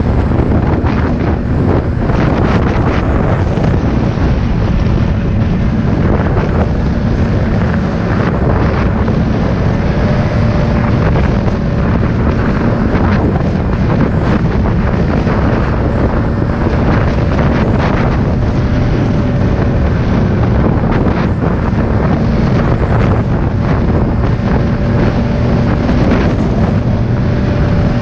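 Snowmobile running at steady speed on a trail, its engine drone mixed with heavy wind buffeting on the microphone, with a faint steady whine and occasional jolts from bumps.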